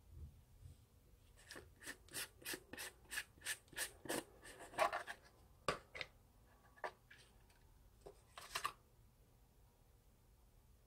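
Screw lid of a jar of aloe vera soothing gel being twisted off: a run of short scraping clicks about three a second, then a few scattered clicks and a brief cluster of rubbing as the jar is handled.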